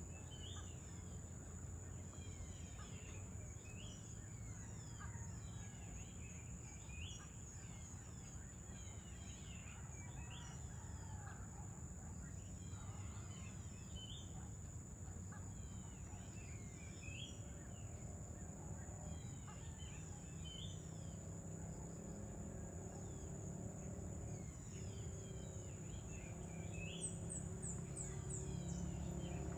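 Outdoor evening ambience: a bird repeating short calls that hook upward in pitch, one every second or two, over a steady high-pitched whine and a low background rumble.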